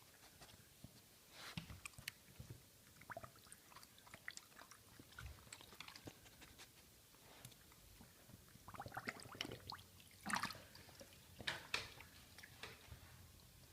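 A dog chewing: small wet clicks and smacks, sparse at first, then coming in louder clusters from about nine seconds in.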